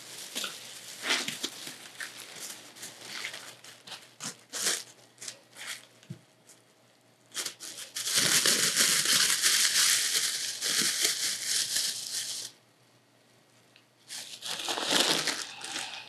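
Plastic crinkling and rustling as a plastic arm sleeve is handled and pulled on: scattered short rustles, then a louder continuous rustle lasting about four seconds past the middle, and a few more rustles near the end.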